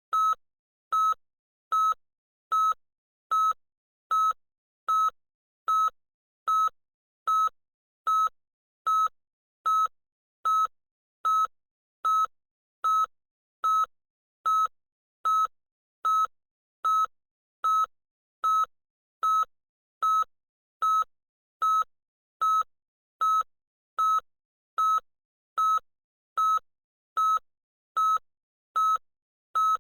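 Electronic beeper sounding a short, high single-pitched beep a little more than once a second, evenly spaced and unchanging in loudness.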